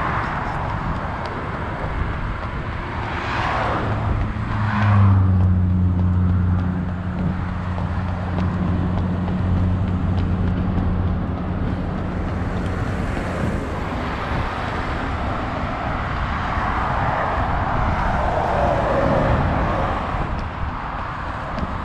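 Road traffic: cars passing on the road alongside, a steady rush with a couple of brief swells a few seconds in. A low engine hum sets in about four seconds in and holds for several seconds before fading.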